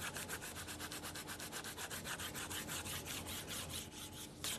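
Stylus scrubbing rapidly back and forth on the Quantel Paintbox graphics tablet, about seven or eight strokes a second, as colour is worked into the image.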